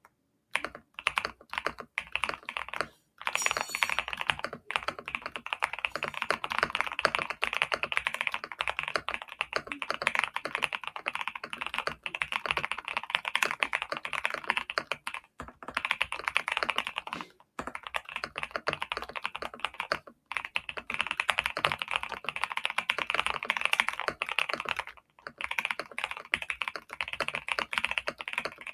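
Mechanical keyboard, a GMK67 with factory-lubed Vertex V1 switches and Cherry Ember keycaps, typed on quickly and continuously. The keystrokes run in a steady stream, with a few brief pauses.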